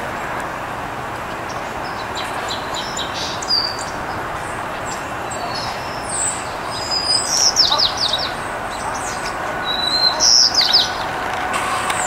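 Small songbirds chirping: short, sharp, high calls, many sweeping downward, in clusters, loudest in two bursts in the second half, over a steady background hum. A faint steady drone joins near the end.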